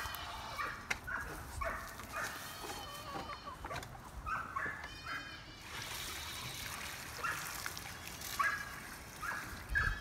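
Water poured from a bucket into a plastic chicken waterer, splashing for a couple of seconds about halfway through, some of it spilling onto the ground. Hens make short clucking calls over and over.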